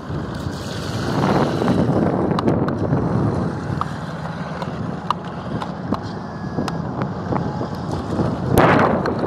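Amphibious radio-controlled car driving through puddles on wet concrete, its tyres splashing, with wind buffeting the microphone. The splashing swells about a second in and is loudest near the end, as the car passes close.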